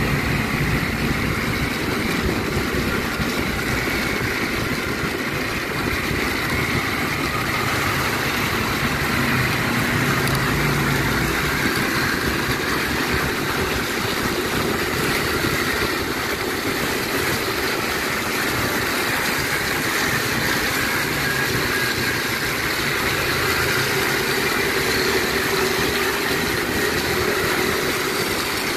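Motorcycle riding at a steady pace: the engine runs evenly under a constant rush of road and wind noise.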